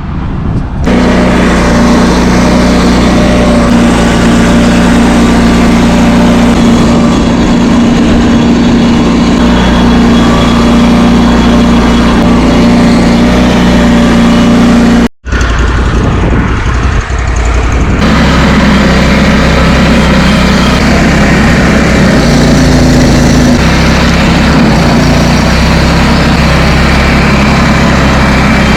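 Loud engine of tree-removal equipment running steadily at a constant speed. It cuts out for an instant about halfway, then runs on at a slightly different pitch.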